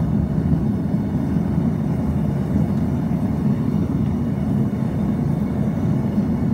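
Homemade naturally aspirated propane forge burner running with a steady low rush of flame, turned low on its gas pressure.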